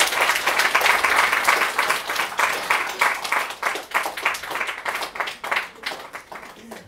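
Audience applauding, loudest in the first few seconds and slowly thinning out, then cut off abruptly.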